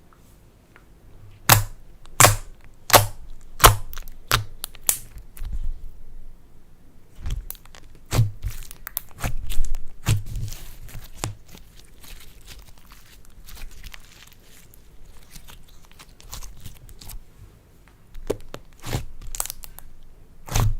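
Slime being worked by hand, with irregular sharp pops and crackles as it is pressed and stretched. A quick run of loud pops comes a couple of seconds in, and more cluster later on.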